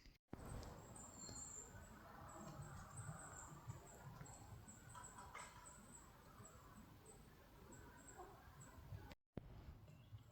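Faint night-time woodland quiet, with a long run of short, very high-pitched chirps from an unseen small animal, coming irregularly a couple of times a second and stopping about a second before the end.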